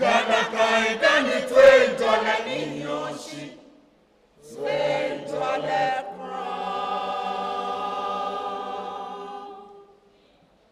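Choir singing: a lively phrase, a short break, then a long held final chord that dies away shortly before the end.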